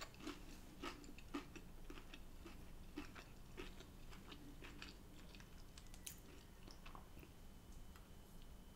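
Faint, close-miked chewing of food, with soft scattered mouth clicks.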